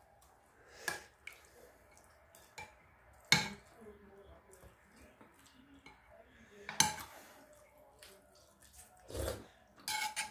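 Utensils clinking against a porcelain bowl while eating: a few scattered sharp clinks, the loudest about three seconds in, with a duller knock near the end.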